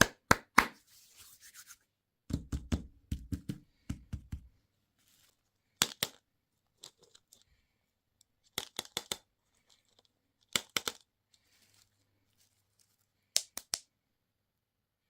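Close-up handling of plastic candy and toy packaging: clusters of sharp clicks and taps, a run of dull thumps a couple of seconds in, and faint crinkling between them.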